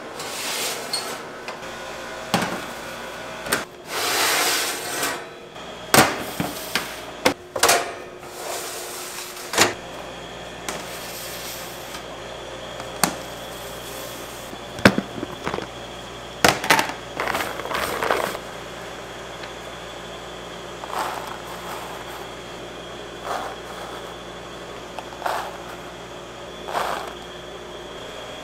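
Bakery kitchen work: irregular knocks and clatters of trays, pans and utensils, with short bursts of scraping or rustling. About ten seconds in, a steady machine hum with a faint high whine comes in underneath.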